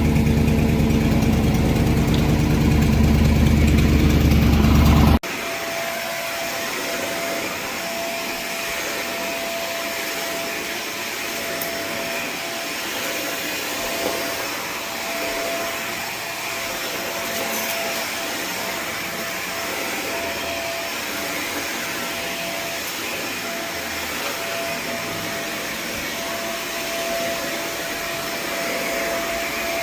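A low engine drone that cuts off abruptly about five seconds in, then a 4-jet titanium carpet-cleaning wand under vacuum: a steady rushing hiss with a thin high whistle held over it. The whistle is the weird noise the new wand is making.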